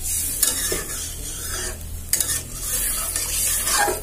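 A metal spatula stirs and scrapes through carrot and potato curry in an aluminium karahi, with a few sharp scrapes against the pan. Under it the hot, watery gravy hisses steadily.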